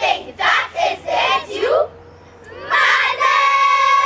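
A choir of children's voices chants a few short syllables together, then about two and a half seconds in holds one long, high, steady sung note in unison.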